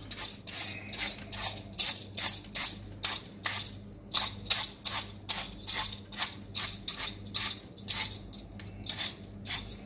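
Metal vegetable peeler scraping the skin off a large Bramley cooking apple in short repeated strokes, about three a second, over a steady low hum.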